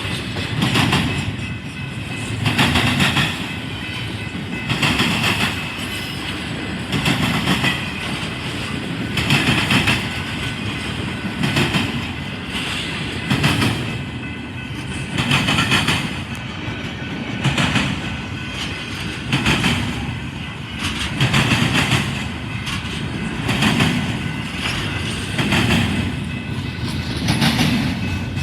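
Train cars rolling past with a steady rumble, the wheels clacking over rail joints in a regular beat about every two seconds.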